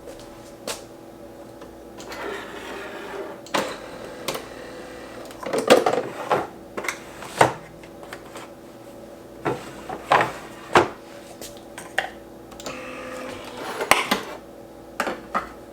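Household objects being handled: a scattered series of sharp clicks and knocks with short rustles, over a faint steady hum.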